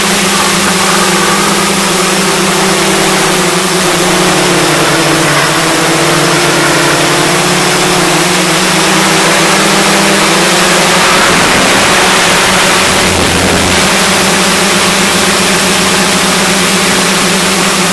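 Hexcopter's six electric motors and propellers whirring in flight, heard close up from the camera on the craft: a loud, steady hum over a rushing hiss, its pitch dipping and shifting a little midway.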